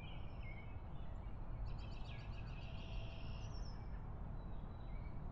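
Outdoor ambience: birds chirping over a steady low background noise. The chirping is busiest from about one and a half to three and a half seconds in.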